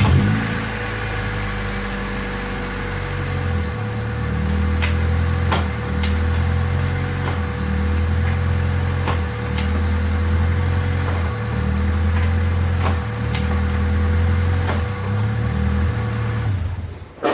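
1996 Honda Civic's D16Y8 four-cylinder running through a muffler-delete exhaust, its revs stepping up and down several times. Sharp clunks come now and then as the engine rocks on a rear engine mount whose through-bolt has backed off loose. The engine shuts off near the end.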